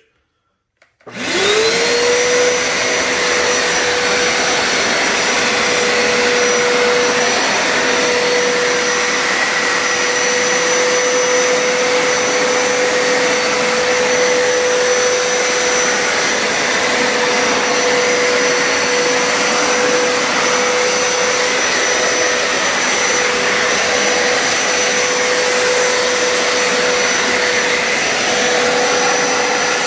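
Hoover Power Scrub Deluxe carpet cleaner switched on about a second in, running in solution mode. Its motor spins up with a quickly rising whine, then runs steadily and loudly with a constant whine over a rushing noise.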